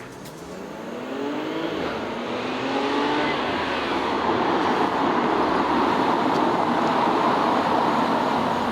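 2012 Audi S5 Cabriolet's supercharged V6 accelerating hard toward the listener, its pitch climbing in the first three seconds or so. The engine and road noise then grow louder as the car closes in and stay loud to the end.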